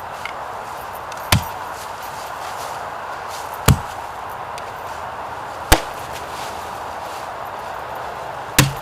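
Four heavy, sharp blows struck into wood, about two to three seconds apart, over a steady background hiss.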